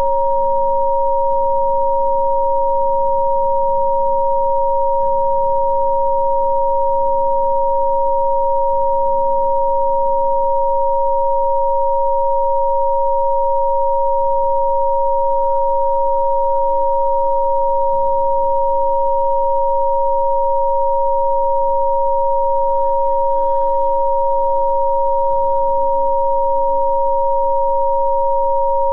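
Two steady electronic sine tones, one lower and one higher, held unbroken at constant pitch and loudness: Rife-style therapy frequencies. A faint soft ambient music bed underneath changes chord every few seconds.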